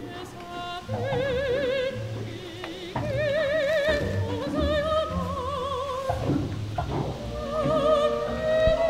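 Operatic music: a high voice sings a series of held notes with a wide, even vibrato over low accompaniment, the notes stepping higher near the end.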